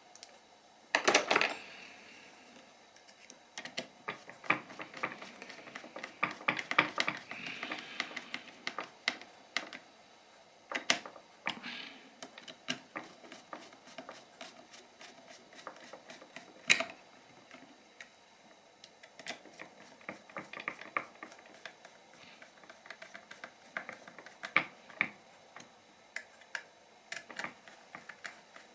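Irregular small clicks and taps of a plastic portable-radio case and its parts being handled and fitted together by hand, with a few louder knocks about a second in and again around the middle.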